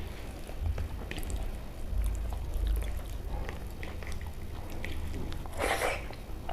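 Close-miked eating sounds: wet chewing and mouth clicks of a person eating khichdi, with one louder, noisier mouthful sound near the end.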